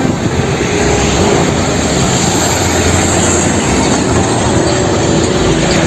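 Heavy fuel tanker truck driving by on a road: a steady rumble of engine and tyre noise.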